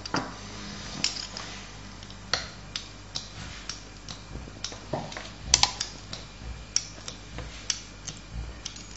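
Irregular light clicks and taps, about two a second, of a knife blade and a metal fluted pastry wheel knocking on a wooden table as rolled chebakia dough is cut into strips. The loudest knocks come about halfway through.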